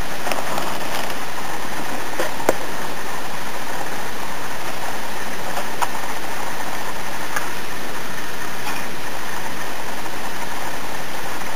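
Steady hiss of noise, with a few faint clicks scattered through it.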